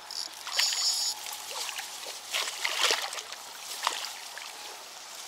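A large common carp, shot with a slingshot arrow and held on the line, thrashing in shallow water as it is being landed by hand: irregular splashing and sloshing, with the biggest splashes about half a second in and again around three seconds in.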